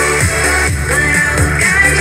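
Electronic dance music played through an I KALL IK22 2.1 speaker system with subwoofer, with a kick drum about twice a second.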